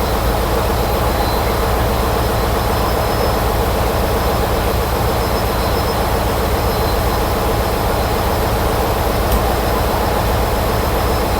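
Steady engine-room machinery noise with a marine boiler's burner firing: a constant low drone with an even hiss over it.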